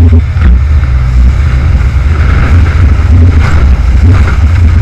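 Loud, steady wind rumble on the microphone of a rigid inflatable boat running fast over choppy sea, with the outboard motor and rushing water underneath.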